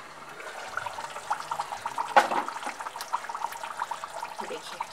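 Thick fish korma gravy bubbling in a pot at a simmer, a steady run of small pops. One sharper knock about two seconds in as the glass lid is lifted off.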